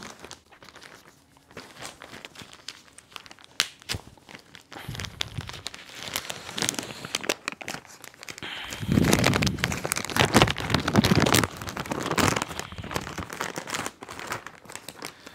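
Courier package being torn open by hand: the packaging crinkles and tears in irregular bursts, with one sharp snap a few seconds in and a louder spell of rustling about two-thirds of the way through.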